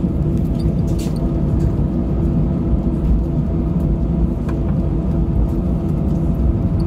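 Airbus A320 passenger cabin: steady low rumble of the engines and airframe, with a few faint clicks of cabin fittings.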